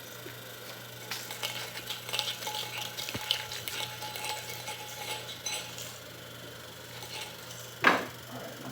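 Metal bushing being deburred by hand: a run of quick, scratchy scrapes and small clicks of a tool working the metal edge, followed near the end by one sharp metal clank.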